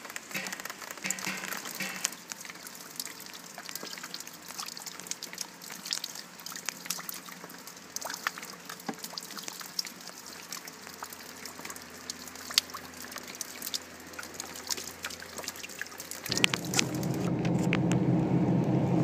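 Rain falling and dripping on wet wood and plants, heard as many sharp separate drops over a steady patter. About sixteen seconds in, a much louder low noise of a car driving on a wet road suddenly takes over.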